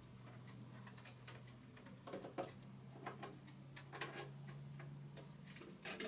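Scattered light clicks and taps of small plastic parts being handled, over a faint steady low hum.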